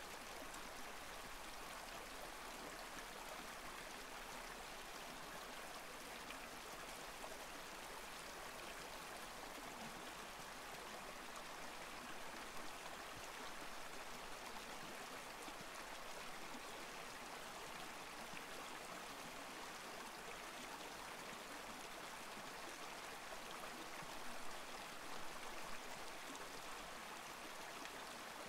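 Steady, faint hiss of background noise with no clear source, broken by a few brief soft knocks partway through and near the end.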